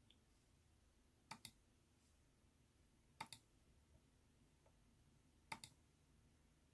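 Computer mouse clicking: three quick double ticks about two seconds apart, in near quiet.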